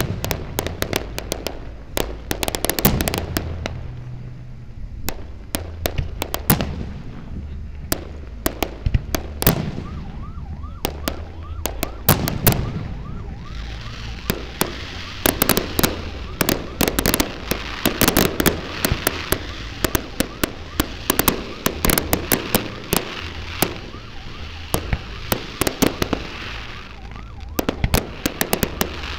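Fireworks display: a continual string of sharp bangs and pops from shells bursting, thickening into a dense hissing crackle from a little before halfway until near the end.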